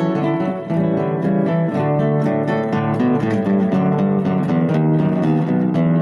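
Instrumental acoustic guitar music, with picked and strummed notes changing steadily.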